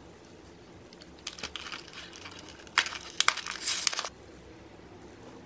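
Stiff plastic blister packaging crinkling and crackling as it is handled, with sharp clicks: a short bout about a second in, then a louder one from about three seconds to four.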